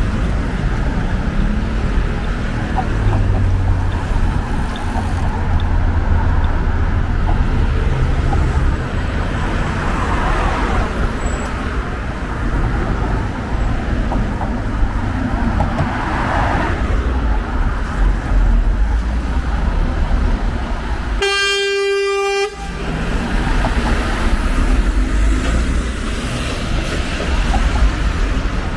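Steady city street traffic noise with low rumble, broken about three-quarters of the way in by a single vehicle horn toot held on one pitch for about a second and a half.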